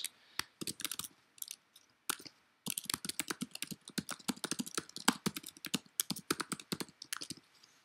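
Typing on a computer keyboard: a quick, irregular run of key clicks, with a short pause about two seconds in.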